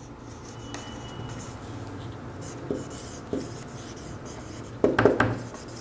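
Marker pen writing on a whiteboard: soft scratchy strokes, with a brief squeak about a second in and a few sharper, louder strokes near the end.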